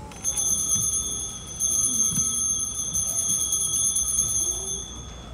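Altar bells (Sanctus bells) shaken to ring at the elevation of the chalice after the consecration: a short peal, then a longer peal of about three seconds.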